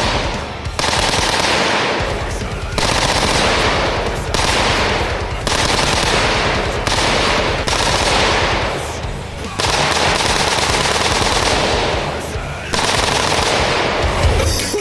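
Rifle fitted with a Slide Fire bump-fire stock firing long strings of rapid shots, machine-gun-like, with short pauses between the strings.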